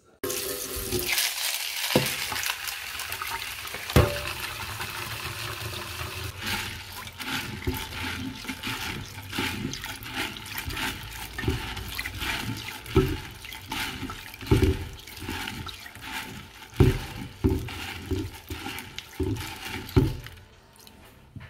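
Water running into a plastic bowl in a stainless steel sink while a hand swishes and rubs dried black beans in it, with repeated splashes and knocks of beans against the bowl. The water sound stops shortly before the end.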